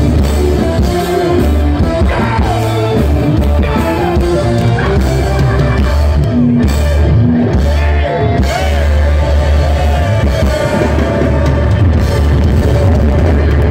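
Live rock band playing loud: a male singer over electric guitars, bass, drums and keyboards.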